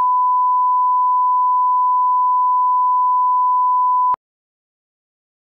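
Steady single-pitch line-up test tone, the reference tone that plays with colour bars. It cuts off suddenly about four seconds in.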